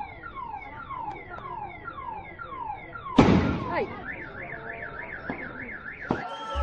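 An electronic alarm sounding in cycles. First a run of quick falling chirps, about two or three a second. About three seconds in, after a sudden loud thump, it changes to a fast up-and-down warble.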